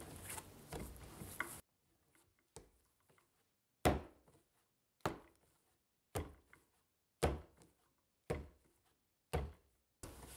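Milk bread dough being kneaded by hand on a bamboo cutting board: a brief soft squishing at the start, then the dough is slapped down onto the board six times, about once a second, each a sharp thud.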